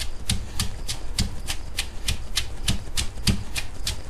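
Stone pestle pounding sliced shallots and lemongrass in a stone mortar: steady, even knocks about three to four a second, each a dull thud with a sharp click on top. Shallots are being crushed into a lemongrass paste for a stir-fry paste.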